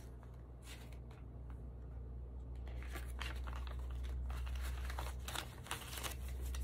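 Paper banknotes rustling in short bursts as a stack of cash is flipped through and counted by hand, with a steady low hum underneath.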